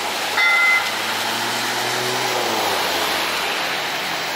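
A short, high horn toot about half a second in is the loudest sound. Under it runs traffic noise with tyres hissing on a wet street, and a passing vehicle's hum drops in pitch a couple of seconds in.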